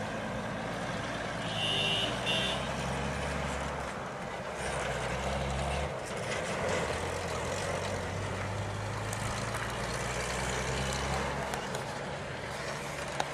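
Road traffic: the engines of trucks and auto-rickshaws running, a steady low hum that swells and fades, with two short high beeps about two seconds in.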